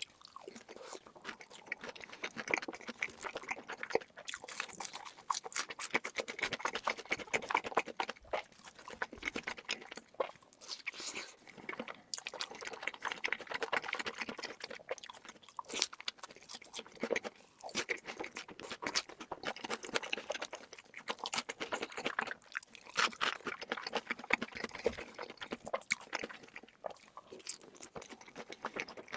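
Close-miked eating: a person chewing and crunching food, with many crisp, irregular clicks and crackles, typical of mukbang ASMR.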